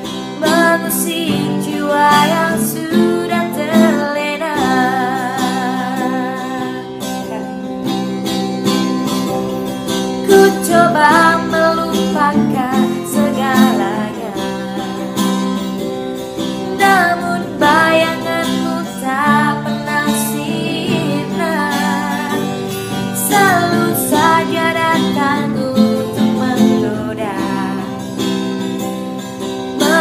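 A woman singing with vibrato over a strummed acoustic guitar.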